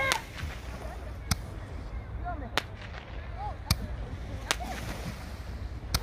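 Small consumer fireworks going off, with sharp cracks about every second, six in all.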